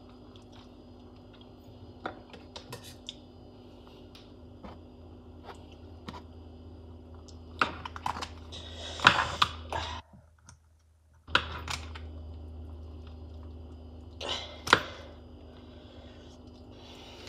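Kitchen scissors cutting through a roast chicken and its rib bones, making irregular snips, clicks and knocks against the plate over a steady low hum; the busiest run of cuts comes a little past the middle.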